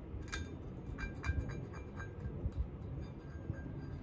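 A screwdriver scraping carbon deposits out of an outboard engine's cylinder head combustion chambers: irregular sharp metallic clicks and scrapes, several a second, each with a short ringing tone from the metal head.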